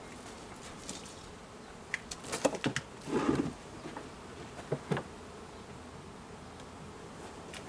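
Honeybees buzzing around an opened hive, stirred up by the hive being taken apart. Wooden hive boxes knock and scrape as they are lifted and set down, in a cluster about two to three seconds in and twice more near five seconds.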